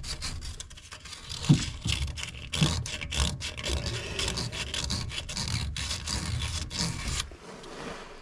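Rough hand rubbing and scraping on a PVC pipe joint, irregular strokes with little clicks, stopping abruptly about seven seconds in.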